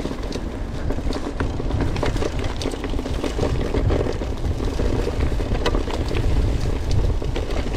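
Mountain bike riding over a bumpy grass track: wind buffeting the action-camera microphone as a steady rumble, with frequent short clicks and rattles from the bike.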